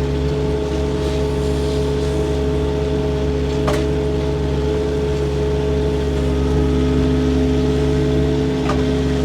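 Engine running at a steady speed, with two short sharp clicks, one a little under four seconds in and one near the end.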